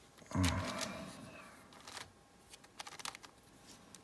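A tall WitEden 3x3 cuboid puzzle cube being turned by hand: a low plastic thump about half a second in, then scattered light clicks as the layers turn. Its many stacked pieces catch on one another, so it turns stiffly.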